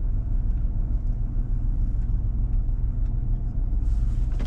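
Truck engine running at low speed while the vehicle is eased into position: a steady low rumble.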